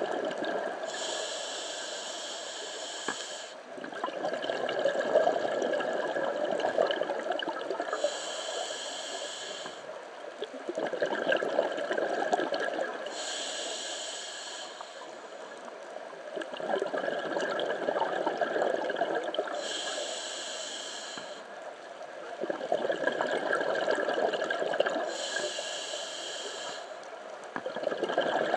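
Scuba diver breathing through a regulator underwater. Each inhalation is a hiss from the demand valve, followed by bubbling as the breath is let out. Five breaths come about every five to six seconds.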